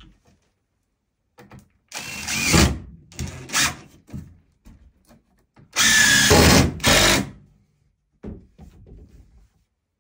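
DeWalt cordless impact driver driving screws into timber framing in short runs: two brief bursts about two seconds in, then a longer, louder run around six seconds in, and a few faint short blips near the end.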